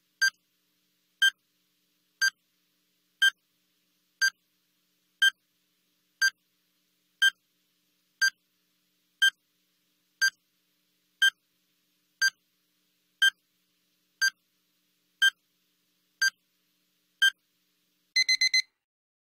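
Countdown timer's electronic beep sounding once a second, short and evenly spaced. Near the end it gives a quick run of four higher-pitched beeps, the alarm that the time is up.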